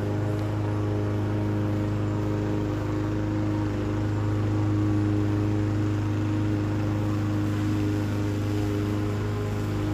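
Petrol lawn mower engine running at a steady speed, an unbroken hum.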